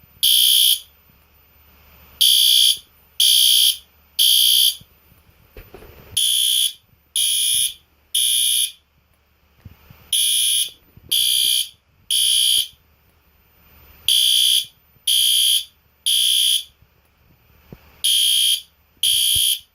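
System Sensor SpectrAlert Advance P2R horn strobe sounding its horn in the temporal-3 pattern, the standard evacuation signal: three loud, high, buzzing blasts about a second apart, then a pause, the group repeating about every four seconds.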